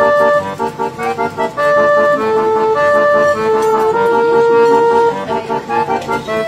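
Background music: a tune of long held notes over a steady, repeating chord accompaniment.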